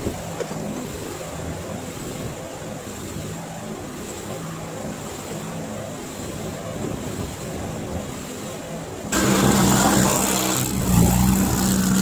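A pickup truck towing an empty flatbed trailer drives slowly past, its engine faint and steady. About nine seconds in, the sound switches abruptly to a skid steer's engine running loud and close as it pushes snow.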